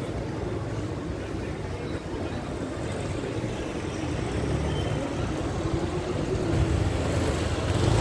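Busy city street ambience: a steady low rumble with the faint voices of a crowd of passers-by.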